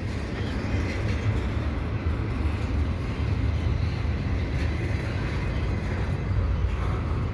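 Double-stack intermodal container cars of a freight train rolling past: a steady low rumble of steel wheels on rail.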